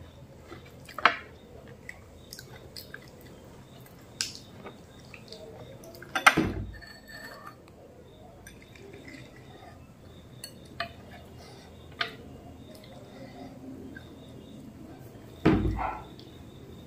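Hands making phuchka (pani puri): crisp puri shells cracked open and stuffed, with scattered light clicks of bowls and cutlery and three louder knocks, about a second in, around six seconds, and near the end.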